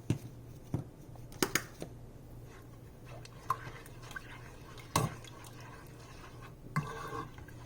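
A cooking utensil knocking against a pot with a handful of separate sharp clinks, spread out across the few seconds, over a faint steady low hum.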